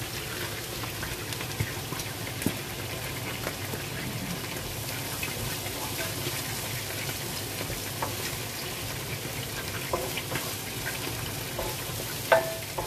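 Sliced onions sizzling as they fry in a pan, stirred with a wooden spatula that scrapes and taps against the pan now and then, with a sharper tap near the end.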